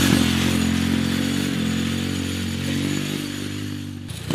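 Small engine of a mini quad running at a steady pitch and growing gradually quieter. A cut near the end brings in a louder burst of engine sound with a bending pitch.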